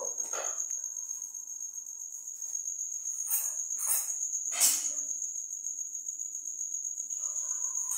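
Steel kitchen utensils clinking sharply three times, a little apart, around the middle as plates, a pan and a bowl are handled, over a steady high-pitched insect trill.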